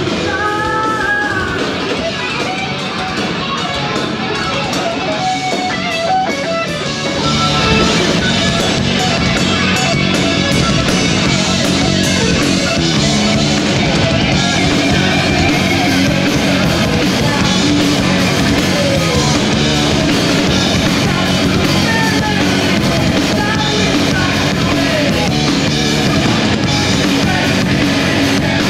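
A heavy metal band playing live, with electric guitars and a drum kit, growing louder and fuller about seven seconds in.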